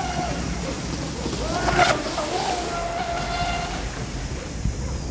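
Radio-controlled model boat running on the water: its motor whine wavers and glides up and down in pitch, with a brief rushing burst about two seconds in.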